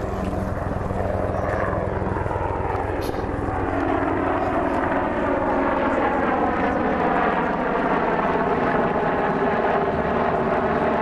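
A UH-60J rescue helicopter and a U-125A jet flying low overhead together. The helicopter's fast rotor beat runs under the jet's turbine whine, and the engine tones slide slowly lower as the pair passes. The sound gets a little louder about four seconds in.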